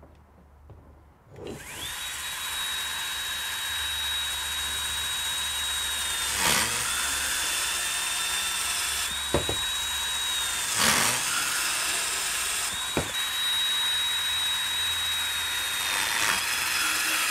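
Bosch 18V compact cordless band saw starting up about a second and a half in and cutting through 2-inch rigid non-metallic (PVC) conduit. It makes a steady high motor whine over a hiss of the blade in the plastic, and the whine dips briefly in pitch a few times.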